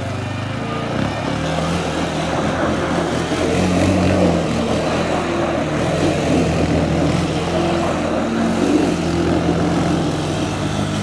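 Sport ATV's engine running hard as the quad slides around in loose dirt, its revs rising and falling.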